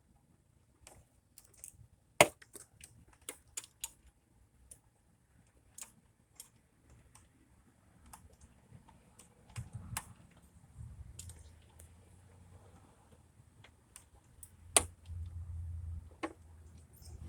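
Irregular metallic clicks and taps from hand tools and bolts, with one sharper knock about two seconds in, as an EGR valve is bolted back in place. A low rumble joins in the second half.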